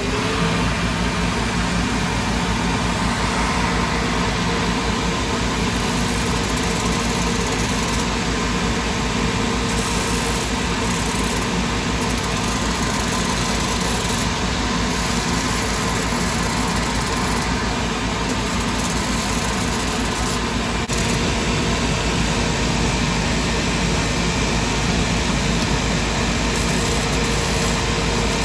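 Cobbler's multi-wheel shoe finishing machine running steadily, its motor and spinning sanding wheels and brushes making a constant mechanical hum.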